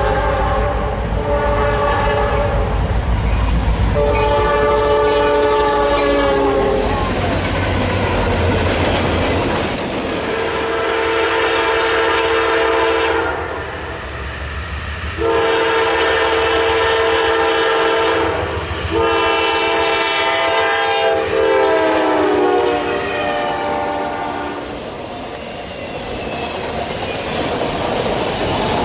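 Diesel freight locomotive horns sounding a series of long blasts, the pitch dropping as the locomotive passes. The later blasts come from a Norfolk Southern GE C44-9W (Dash 9) leading an autorack train at a grade crossing. Near the end the autorack cars roll by with a steady rumble and clickety-clack of wheels over the rail joints.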